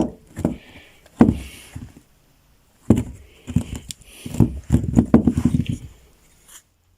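A string of separate knocks and clunks with a short rattling patch midway, as a metal-and-rubber engine mount is handled and set down.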